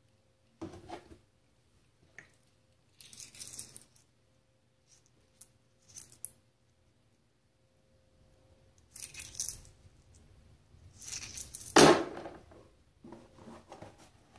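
Scattered handling noises and light clinks of small steel screwdriver bits being picked up by hand and dropped back into a plastic tub, with the loudest clatter late on.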